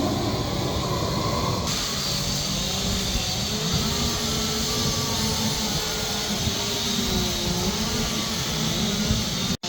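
Gas chainsaws running at high revs while carving wood, their pitch wandering up and down as the cut loads and frees them. The sound changes abruptly about two seconds in and drops out for an instant near the end, as at edits.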